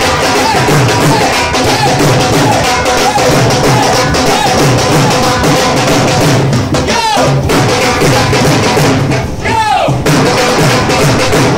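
Dhol drum played with loud backing music, a steady rhythm of heavy drum beats. Twice in the second half a swooping tone falls in pitch.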